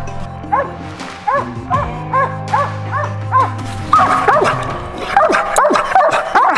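A hunting dog barking over and over at the base of a tree, about two to three barks a second: treeing, the bark that tells the hunter the game is up that tree. Background music plays under the barking.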